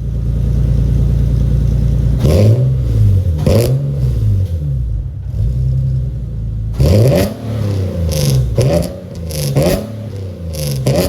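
Car engine idling, then revved hard in repeated quick blips: two revs, a short spell back at idle, then a rapid run of blips.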